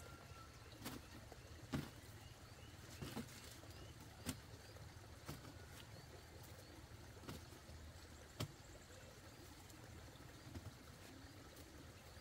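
Soft knocks as luffa gourds are lifted from a woven basket and set down on a paper-covered wooden table, one every second or two, over a faint low steady hum.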